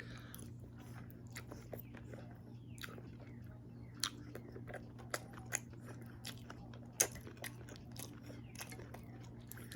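A person chewing and eating Super Noodles close to the microphone: irregular wet mouth clicks and smacks, a few sharper ones standing out.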